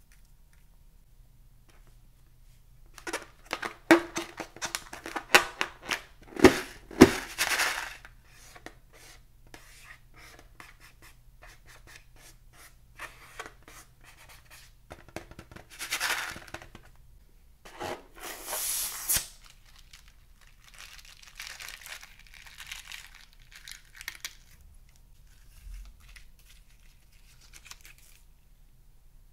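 Crinkling, crackling handling noises in several bursts, the loudest a run of sharp clicks and crackles a few seconds in, with shorter bursts later.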